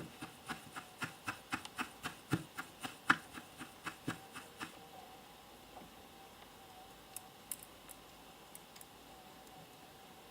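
A quick run of light clicks and taps from hand tools being handled during soldering, about four a second, stopping after about four and a half seconds; a few faint clicks follow later.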